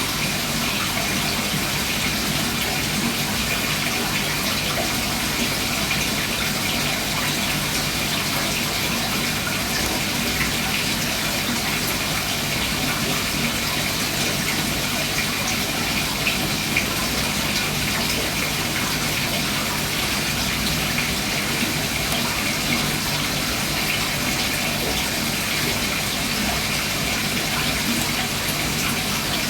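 Steady rush and splash of water in an aquarium, the constant running of its filtration.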